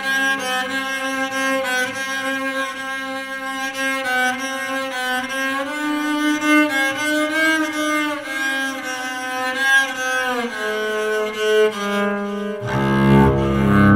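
Handmade electric cello, bowed and played through an amplifier and effects unit. It plays a melody of sustained notes that slide from pitch to pitch, and near the end drops into a deeper, fuller low register.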